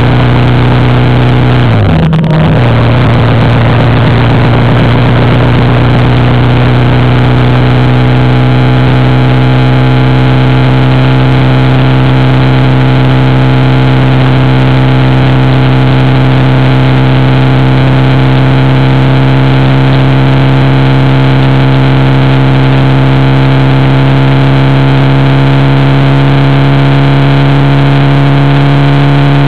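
Motorcycle engine running steadily at cruising speed on the move, under a constant rush of wind and road noise. About two seconds in, the engine note briefly rises and then dips, as in a gear change, before settling back into one steady note.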